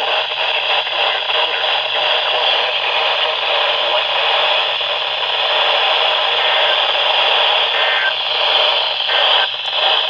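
Midland NOAA weather radio on the 162.500 MHz weather channel giving out steady, loud static hiss: the channel is carrying no clear broadcast signal.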